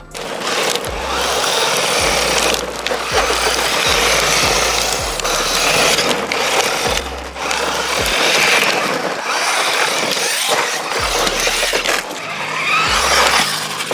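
A 1/10 scale VRX Racing Agama RH1061 RC truggy, with a 590 brushed motor, being driven over loose dirt and gravel. Its tyres make a steady noise on the loose surface, with background music.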